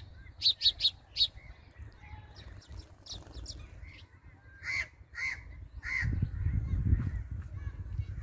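Birds calling: a quick run of high chirps near the start, then three harsh calls about half a second apart. A low rumble comes in at about six seconds.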